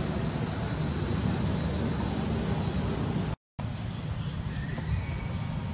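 Steady high-pitched drone of insects over a low rumble of outdoor background noise. The sound breaks off to silence for a moment about three and a half seconds in, then resumes.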